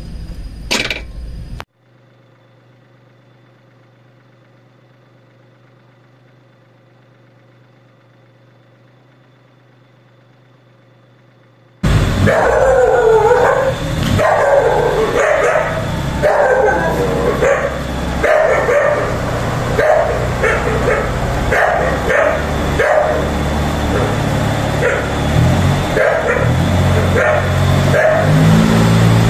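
A quiet, steady low hum for about ten seconds. About twelve seconds in it cuts abruptly to a loud, continuous din of barks and yelps from animals.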